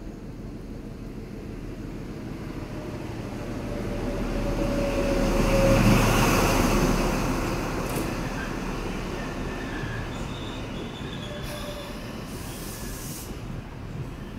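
An XPT diesel train running into the station. The power car's engine and wheels grow loud as it passes about six seconds in, then the carriages roll by slowing to a stop, with faint squealing from the wheels.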